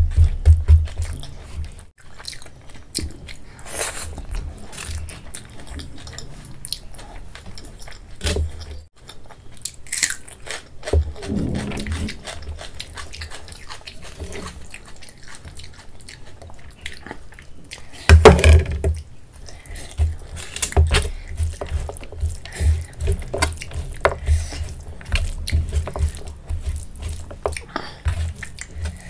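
Close-miked eating by hand: chewing rice mixed with kadhi and pakoda, with irregular wet mouth clicks and smacks and the squish of fingers working the food.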